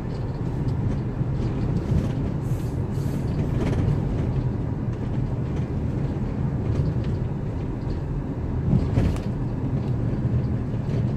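Car cabin noise while driving: a steady low rumble of engine and tyres on the road, with a few short knocks.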